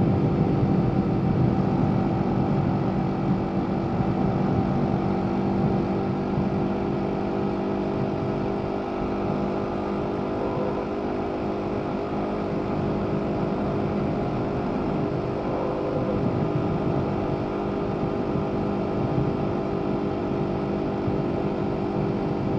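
BMW G 310 R (2021) single-cylinder engine through its stock exhaust, heard onboard while cruising at a steady speed. The engine note holds a nearly constant pitch and eases off slightly about eight seconds in.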